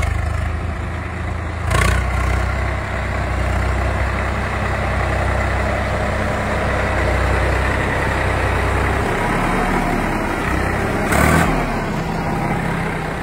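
Swaraj 855 tractor's three-cylinder diesel engine running hard under load while hauling a heavily loaded trolley. It gets louder about two seconds in and holds steady, eases off about nine seconds in, and surges briefly a couple of seconds before the end.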